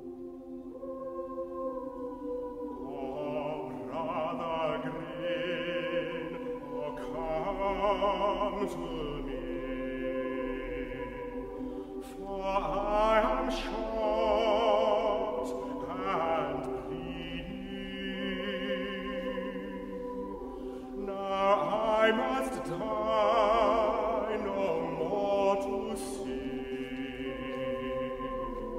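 Chamber choir singing slow, sustained chords in several parts, with a wavering vibrato; higher voices join a low held chord about three seconds in, and the sound swells and ebbs in waves.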